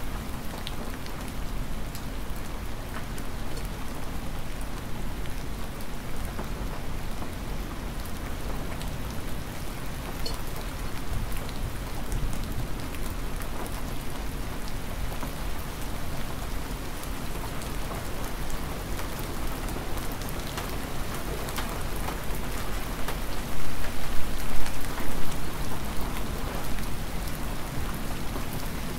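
Hard rain falling steadily, with many separate drops ticking on surfaces close by. It swells louder for about two seconds a little before the end.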